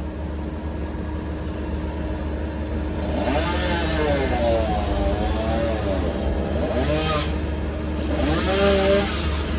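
An engine revving up and down repeatedly from about three seconds in, over a steady low engine rumble.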